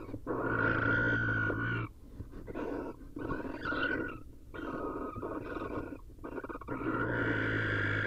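Barn owls giving harsh, rasping screeches and hisses while fighting over a nest box, in about five long calls with short gaps, the first and last the loudest. The calls are the alarm and threat sounds of owls defending the box against an intruding male.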